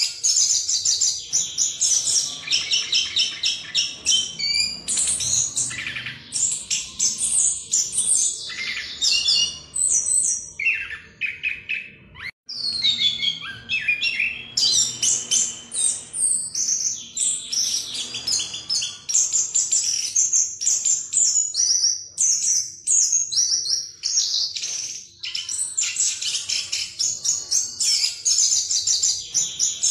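Chestnut-capped thrush (anis kembang) singing a fast, continuous rolling song ("ngerol") of rapid high trills and whistled notes, with a brief pause about twelve seconds in.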